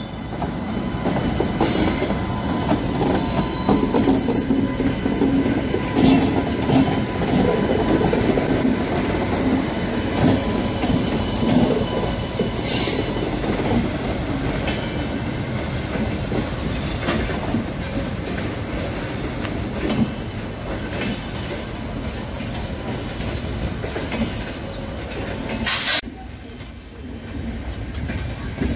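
Electric locomotive and a rake of LHB passenger coaches passing close by over station pointwork. Steady rumble with wheels clacking over rail joints and points, some wheel squeal and a few sharp clanks. The noise drops suddenly near the end.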